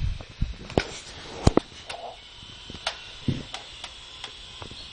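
A series of irregular sharp knocks and taps, the loudest about one and a half seconds in, with a brief faint higher sound about two seconds in.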